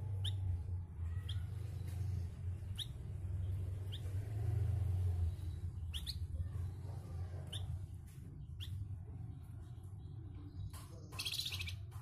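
Caged flamboyan songbird giving short, sharp, falling chirps about once a second, then a louder harsh, rasping burst near the end. A steady low hum runs underneath.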